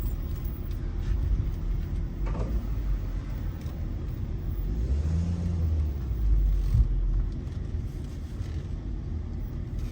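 Car on the move: a steady low rumble of engine and road noise, swelling for a moment about halfway through.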